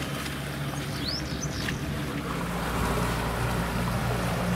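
Boat motor running with a steady low hum that grows louder about two and a half seconds in. Two brief high rising whistles sound about a second in.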